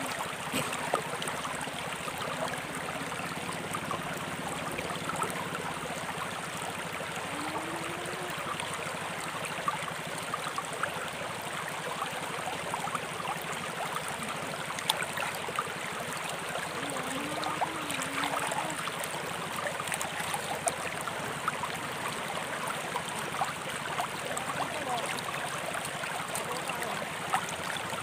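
A shallow, rocky river flowing steadily over and around stones, a constant rush of water. A few brief sharp sounds stand out over it now and then.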